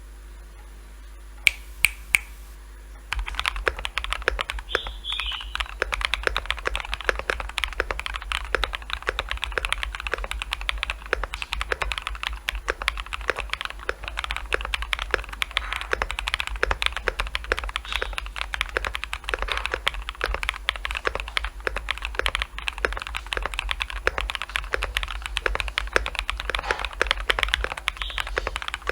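Typing on a Nook75 mechanical keyboard with BSUN Bubble switches, MW Retro Light keycaps, an aluminium plate and case and plate foam. Three sharp clicks come about a second and a half in, then fast continuous typing starts about three seconds in and runs until just before the end.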